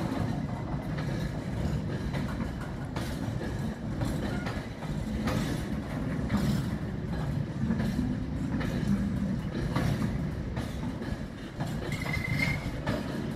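Rake of JNA ballast wagons and flat wagons rolling past: a steady low rumble with irregular clatter of wheels over rail joints, and a brief high squeal about twelve seconds in.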